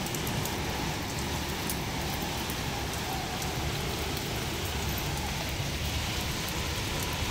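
Steady rain falling on a wet concrete rooftop and courtyard, with individual drops pattering into puddles.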